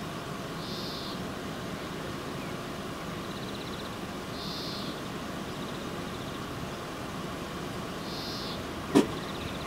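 Level-crossing warning bell, the classic electric bell on AŽD 71 signals, ringing steadily while the crossing is active. A single sharp knock near the end.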